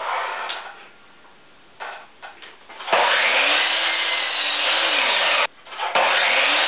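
Mastercraft mitre saw cutting a 1x4 board to length: a few knocks as the board is handled, then about three seconds in the saw starts, its motor whine rising, holding through the cut, then winding down before the sound cuts off suddenly. A second cut starts near the end, the motor again rising in pitch.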